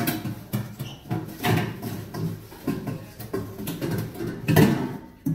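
Stainless-steel bowl being handled in a steel sink: a run of clattering knocks and scraping of metal on metal, the loudest knock near the end.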